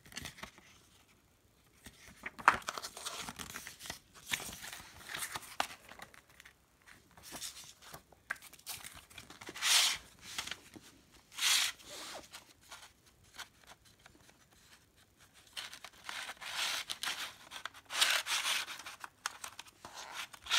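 Paper CD booklet and plastic jewel case being handled: pages flipped and rustled, with scattered clicks of the plastic case. There are short rustling swishes throughout, the loudest two about ten and eleven and a half seconds in, and a busier run of rustling near the end.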